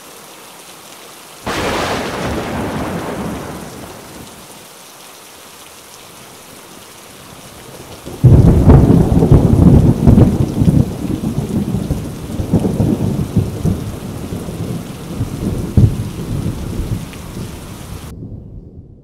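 Thunderstorm: steady rain falling throughout. About a second and a half in, a thunderclap rolls away over a couple of seconds. About eight seconds in comes a much louder, closer clap that rumbles and crackles for some ten seconds. The sound cuts off abruptly near the end.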